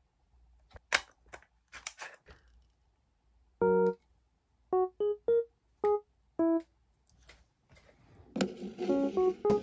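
A few sharp clicks and taps of hard plastic capsule-toy parts being handled and fitted together. Then background music of short, separate keyboard notes begins about three and a half seconds in and grows fuller near the end.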